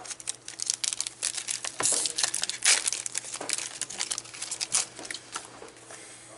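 A foil Cardfight!! Vanguard booster pack crinkling and tearing as it is ripped open by hand. It is a dense run of crackles that thins out after about five seconds.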